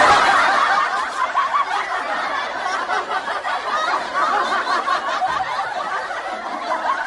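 Laughter from many overlapping voices, a laugh track, starting abruptly and easing off slightly toward the end.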